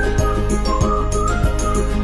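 Background music with a steady beat and a high melody line.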